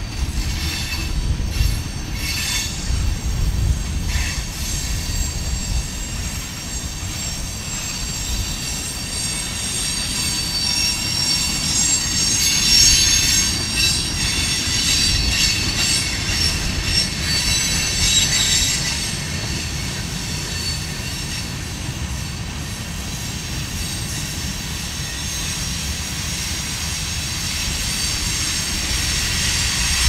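Freight cars of a passing train (tank cars, then a coil car and covered hoppers) rolling by close up: a steady low rumble of steel wheels on rail with high-pitched wheel squeal that grows strongest midway. A few clacks sound in the first few seconds.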